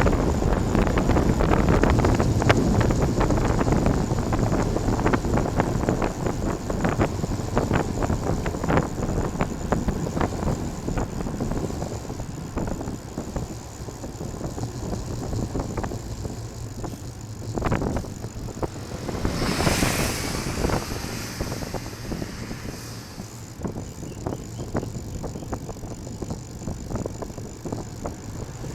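Wind buffeting a moving microphone in uneven gusts, loudest early and easing off, with a short rushing swoosh about twenty seconds in.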